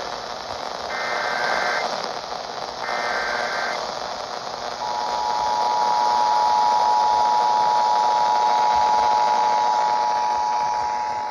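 Emergency Alert System monthly test received on a radio through steady static hiss. It opens with the end of the first SAME digital header burst and two more bursts, each about a second of rapid warbling data tones. About five seconds in, the two-tone EAS attention signal (853 and 960 Hz together) starts and holds steadily.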